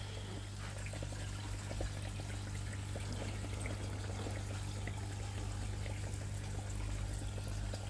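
Water bubbling and trickling steadily in a small aerated pool, with the low, even hum of an electric pump underneath.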